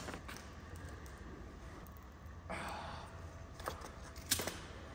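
Light clicks and clatter of hard plastic number plates being handled and knocked together, with a sharp click near the end, over a low steady hum.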